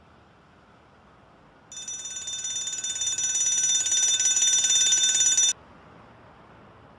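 Bedside alarm clock ringing: a loud, high, rapidly fluttering ring that starts about two seconds in, grows louder, then cuts off suddenly as a hand switches it off.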